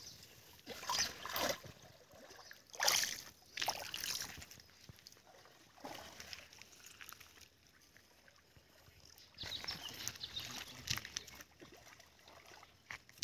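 Shallow stream water splashing and sloshing as people wade and grope in it by hand. There are several short splashes in the first few seconds and a longer spell of splashing near the end.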